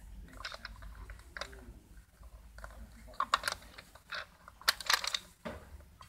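Plastic toy car being handled and turned in the hand, its plastic parts clicking and clattering in short irregular clusters, loudest twice near the middle and later on.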